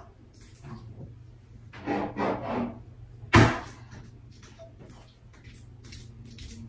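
Kitchen handling noises: a few soft rattles, then one sharp knock about three and a half seconds in.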